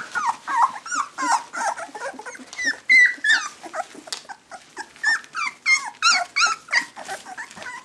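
Young puppies squealing and whimpering while they play: many short, high cries in quick overlapping succession.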